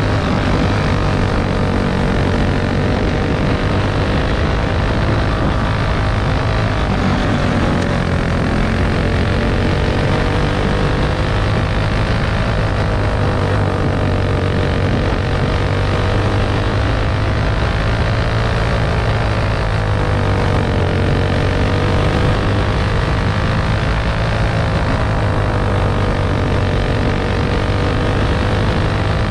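Champ buggy's racing engine running under load at full racing speed, its pitch rising and falling every few seconds with the laps of the dirt oval. The motor is running hot, at 512 degrees, yet keeps going.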